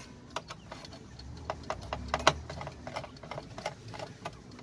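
Self-tapping screws being unscrewed from an air fryer's fan housing: an uneven run of small sharp metallic clicks and taps.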